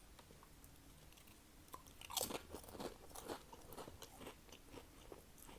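Crunchy snack chips being bitten and chewed close to the microphone: a run of sharp crackly crunches that starts about two seconds in, loudest at the first bites, then settles into lighter chewing.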